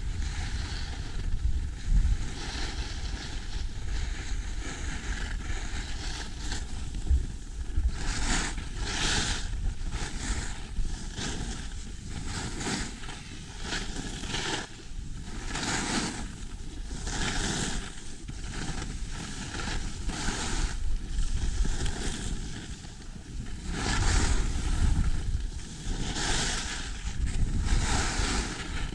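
Wind rumbling on the microphone while skiing down a groomed piste, with ski edges hissing on the snow in a series of swishes every second or two from about a quarter of the way in, as the skier makes turns.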